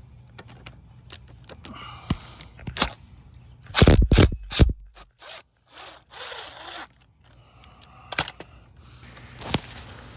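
Workshop handling noises: a series of clicks and knocks with bursts of scraping and rubbing, the loudest a heavy scrape about four seconds in.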